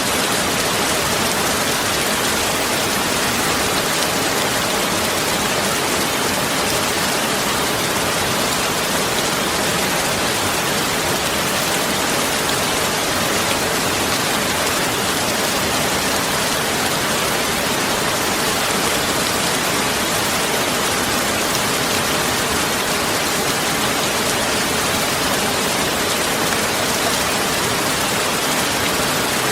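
Heavy rain falling steadily: a dense, even hiss with no pauses or changes.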